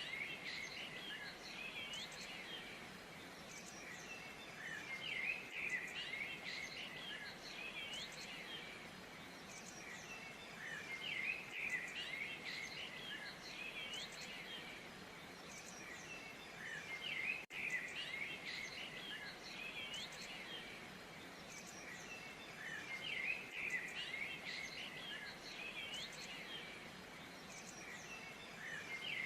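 A chorus of small songbirds chirping and twittering continuously, many short overlapping calls, over a faint even background hiss.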